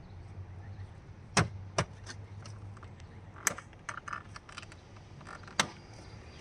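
Flathead screwdriver prying at the plastic headlight switch in a 2004 Ford Freestar's dashboard: sharp plastic clicks and taps, four loud ones with a flurry of lighter ticks between.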